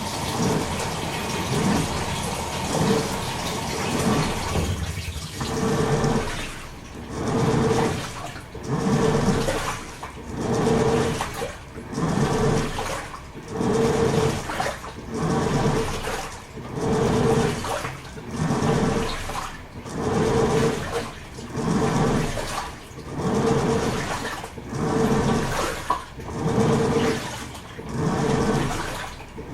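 Toshiba AW-42SEE4 top-loading washing machine at the water-fill and wash stage. Water rushes into the tub at first. About five seconds in, the pulsator settles into a steady back-and-forth churn, roughly one swell of motor hum and sloshing water every second and a half.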